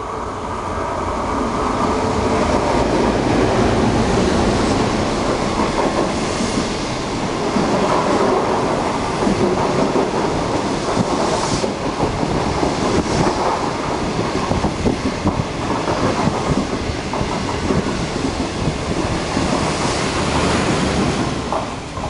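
Locomotive-hauled intercity passenger train passing close by, its wheels clattering over the rail joints. It builds over the first couple of seconds, stays loud, and drops off near the end.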